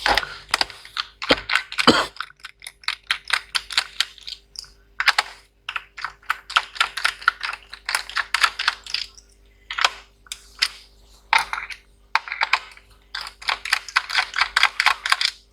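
Quick runs of sharp plastic clicks and taps as a laptop's case and parts are handled, in clusters with short pauses between.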